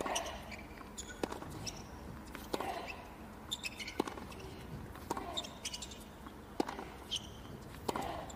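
Tennis rally on a hard court: sharp racquet-on-ball strikes and ball bounces alternating about every second or so, with short rubber sneaker squeaks on the court between shots.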